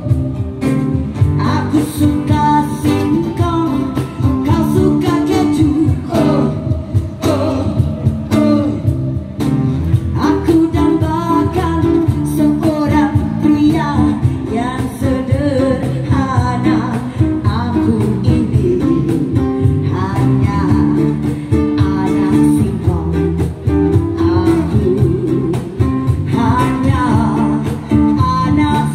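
Live band performance: a woman singing a dangdut song into a microphone over acoustic guitar and electric guitar or bass accompaniment, amplified through a PA.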